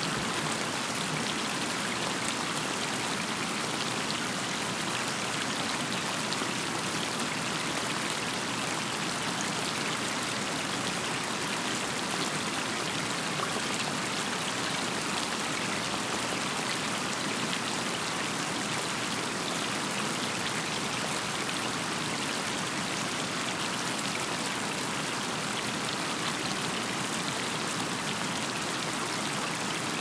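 Steady rain: a dense, even patter of raindrops that does not let up.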